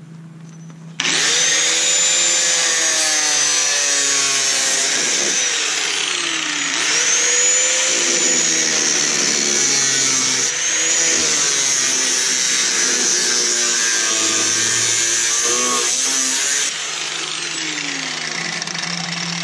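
Corded angle grinder with a cutoff wheel starting up about a second in and cutting through the rusted sheet-metal rocker panel and cab corner, its pitch dipping and recovering as the wheel bites into the metal. Near the end it is switched off and winds down.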